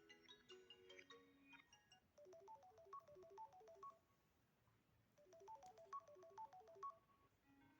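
Samsung Galaxy A52 built-in ringtone, quiet: a short phrase of quick bell-like notes over a fast ticking, played about two seconds in and again about five seconds in. The last notes of the previous tone fade out in the first second or so.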